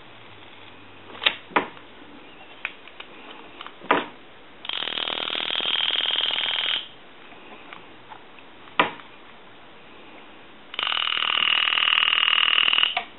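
Bell-ringer solenoid of a Conair Metropolis model 2504 telephone being test-rung, its plunger kicking rapidly back and forth: two rattling ringing bursts of about two seconds each. A few sharp clicks come before and between the bursts.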